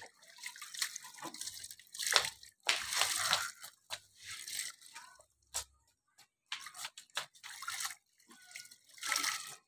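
Clothes being washed by hand in a plastic tub of water: water splashing and dripping back into the tub in irregular bursts as wet cloth is squeezed and wrung out.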